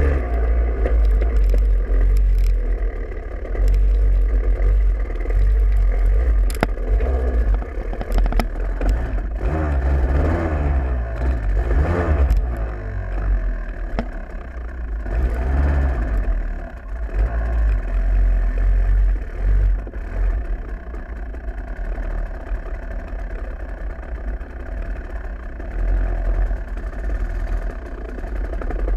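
KTM 250 SX two-stroke dirt bike engine revving up and down at low speed, its pitch rising and falling several times, then running more steadily at lower revs in the second half, over a constant low rumble.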